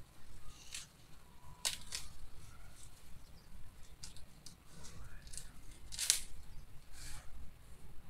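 Tall dry grass stalks rustling and snapping as they are grabbed and pulled by hand: a string of short, crisp crackles about a second apart.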